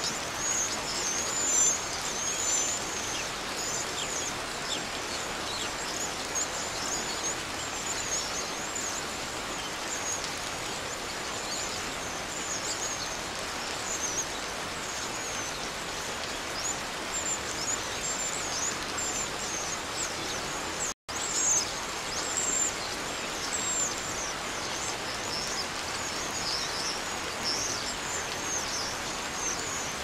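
Forest ambience: many small birds chirping high over a steady hiss. The sound cuts out for an instant about two-thirds of the way through.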